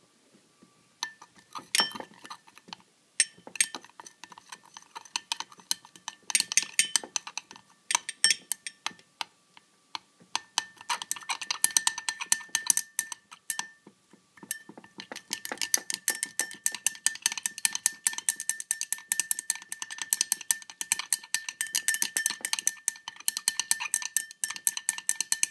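A stirring utensil clinking against the inside of a glass cup while it mashes lumps out of a polyvinyl alcohol and water mixture being heated into a gel, with the glass ringing faintly under the strikes. The clinks are scattered with short pauses at first, then from about halfway through become a fast, steady run of taps.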